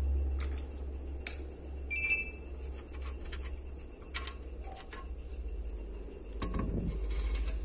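A few sharp, isolated light clicks and taps over a low rumble of the phone being handled, with a brief high two-note chirp about two seconds in.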